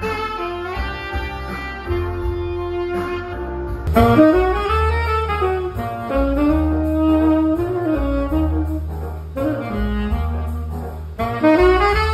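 Saxophone playing a jazzy melody in phrases over a steady bass accompaniment. About four seconds in the sax gets louder, with long lines that swell up and fall back in pitch.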